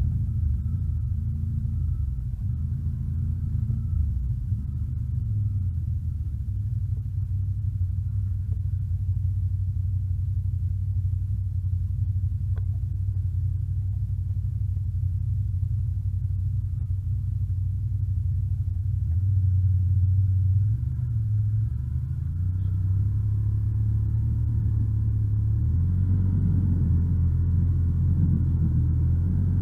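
ATV engine running steadily under way, a low drone whose pitch shifts in small steps and grows fuller near the end.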